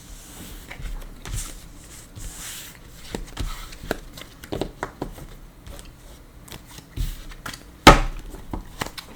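Tarot cards being handled and gathered up: scattered light taps and clicks, with one sharp knock near the end.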